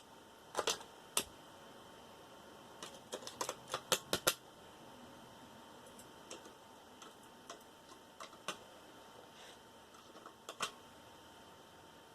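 Irregular light clicks and taps of small computer parts and hand tools being handled during dismantling: a few sharp clicks near the start, a quick run of them about three to four seconds in, then fainter scattered ticks.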